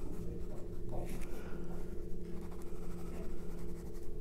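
Pencil drawing on paper: the scratch of graphite strokes laying in shading, over a steady low hum.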